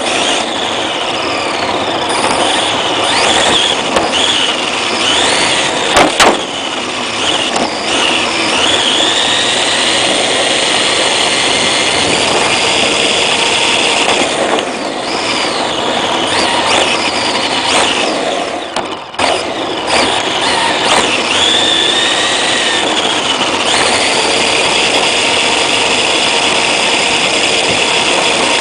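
Onboard sound of a Tamiya TA03F radio-controlled car with a Jaycar 3300kv brushless motor driving fast on asphalt. A high whine from the motor and drivetrain rises and falls with the throttle over a steady rush of tyre and wind noise at the camera. There is one sharp knock about six seconds in.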